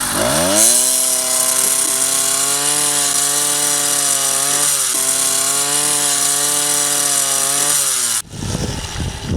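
Small two-stroke motorized-bicycle engine revving up and held at high revs with a steady buzzing whine, dipping briefly a couple of times. It cuts off abruptly about eight seconds in, followed by a low rumbling noise.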